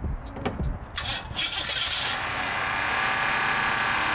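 1990 Cadillac DeVille's 4.5-litre V8 starting after a few clicks, catching about a second in and then running with a loud, harsh, steady noise sitting high above the engine's low note. The water pump pulley has been left untightened, which the owner notices right after.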